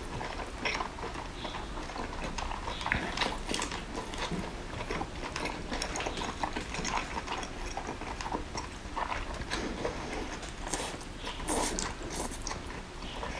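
Close-miked eating of seafood: an irregular run of small clicks, crunches and cracks of shells being broken and chewed.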